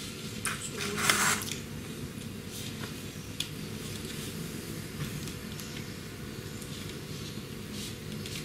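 Room tone: a steady low hum, with a short rustle about a second in and a few faint ticks.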